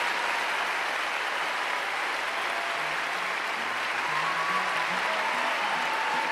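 Audience applauding steadily, with a few faint pitched instrument notes sounding under the clapping in the second half.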